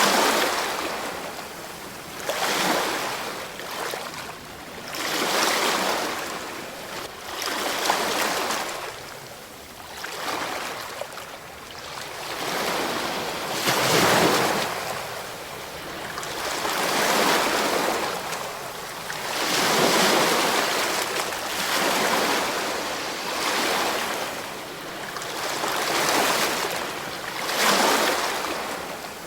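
Ocean waves breaking and washing in, the surf swelling and falling back about every three seconds.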